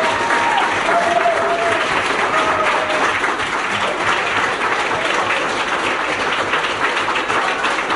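Audience applauding a speech: dense, steady clapping from a large crowd.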